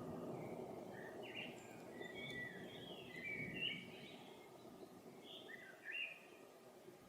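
Small birds chirping in short, high calls over a faint low rumble that fades away during the first few seconds.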